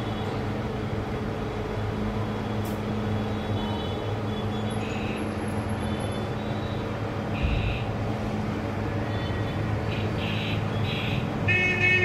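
A steady low droning hum with a haze of background noise, and short high-pitched tones sounding a few times in the second half.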